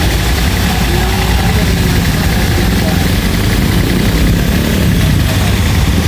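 Electric-motor-driven plunger pump of a high-pressure car-wash sprayer running steadily with a low hum while it shoots a long water jet through the spray gun.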